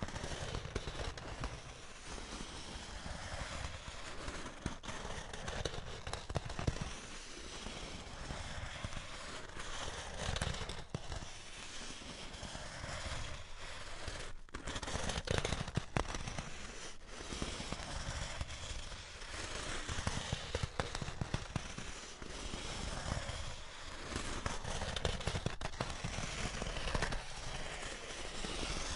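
Styrofoam (expanded polystyrene) being handled and rubbed, a continuous dense crackling and creaking made of many small clicks. It swells and eases in repeated strokes about every two seconds.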